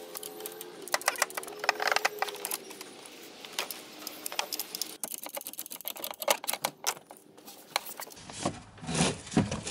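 Irregular clicking and rattling as the mini split's line set and cables are handled and fed through a hole in the bus wall. A faint steady hum runs under the first few seconds.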